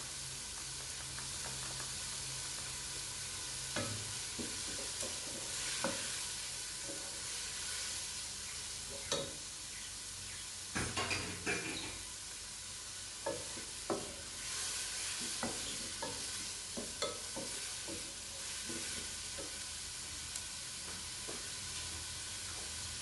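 Chicken, onion and grated carrot sizzling in a pot while a wooden spoon stirs them, with scattered knocks of the spoon against the pot.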